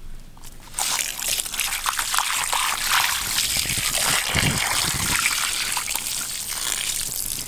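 A stream of water pouring into and splashing over a gutted, plucked poultry carcass as it is rinsed and rubbed by hand. The water starts suddenly about a second in and keeps running, with a deeper slosh about halfway through.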